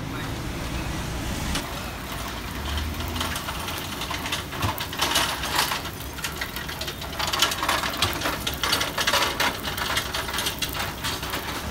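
Low rumble of idling traffic on a wet street. From about five seconds in come loud, irregular bursts of crackling sizzle: paratha frying in oil on a hot griddle.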